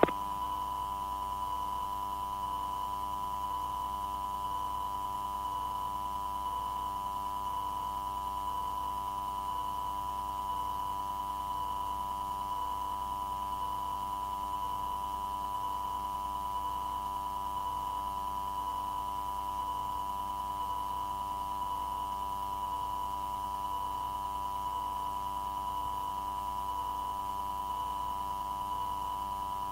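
Steady electronic tone near 1 kHz with a fainter higher tone and a low hum, unchanging throughout: background line tone of an air traffic control tower radio recording while the frequency is quiet between transmissions.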